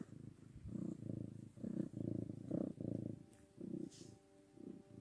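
Domestic cat purring while being stroked, a low rhythmic rumble that swells and fades with each breath. About three seconds in, soft steady ringing tones of background music begin under it.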